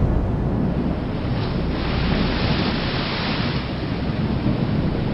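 Thunderstorm ambience: a low rumble of thunder, easing about halfway through, under a steady rush of rain.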